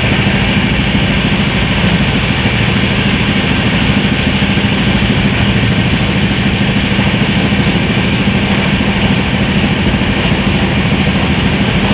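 Express passenger train coach running at speed: a steady rush of wheel-and-rail noise and wind at the open coach door, with a steady low hum underneath.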